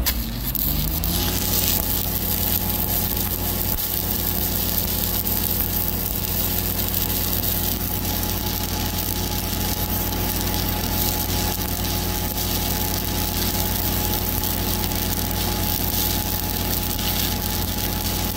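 Stick welding with an ESAB 7018 1/8-inch electrode at about 124 amps: a steady arc crackle over the hum of a Lincoln 305D diesel engine-driven welder. The engine picks up speed in the first second as the arc draws current, then runs steady.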